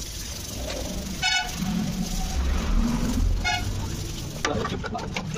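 Two short vehicle-horn beeps from road traffic, about two seconds apart, over the low rumble of a passing vehicle, with a few light knocks near the end.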